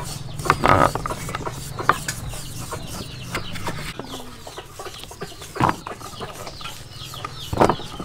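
Chickens clucking now and then, with a few louder calls, over short sharp taps of a kitchen knife cutting gourd on a wooden chopping board.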